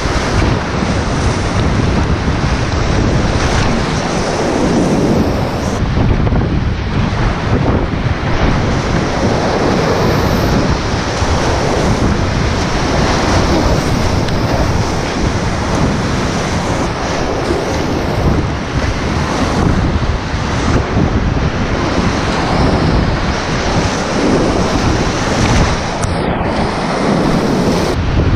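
Loud, steady rush of whitewater rapids close around a kayak, with water washing over the microphone and wind buffeting it.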